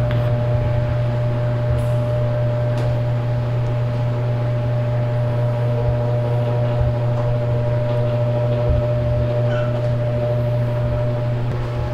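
Steady low electrical hum with several fixed higher overtones, unchanging throughout, like a running motor or appliance.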